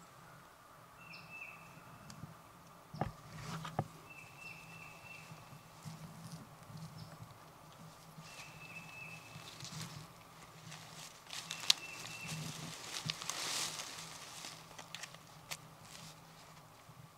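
Dry leaf litter rustling and crunching, with a few sharp clicks, as a kneeling hunter handles turkey decoys on the forest floor; busiest about twelve to fourteen seconds in. A bird repeats a short, flat, high note every few seconds.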